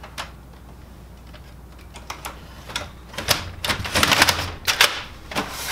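Hard plastic clicking and rattling as a part is set back into the frame of an opened Kyocera FS-4300 laser printer. A few scattered clicks come first, then a dense clatter for about two seconds near the end.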